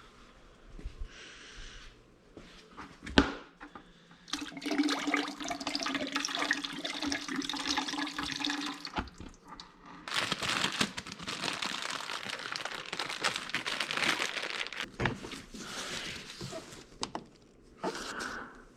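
Liquid, most likely diesel fuel from the fuel filter, pouring and splashing out in two long runs of about five seconds each. A single sharp knock comes about three seconds in.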